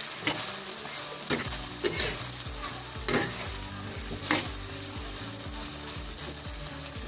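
Vegetables and sardines sizzling steadily in a non-stick wok while a spatula stirs them. A few sharp scrapes of the spatula against the pan come in the first half, the loudest about four seconds in.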